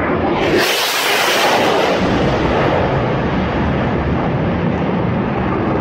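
Jet noise of an F/A-18 fighter passing low overhead. A sudden hissing rush comes in about half a second in, then a steady loud rumble that carries on as the jet moves away.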